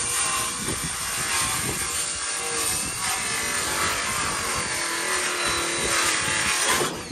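Cordless power saw running and cutting through the wooden door and jamb. It cuts off near the end, the pitch falling as the blade spins down.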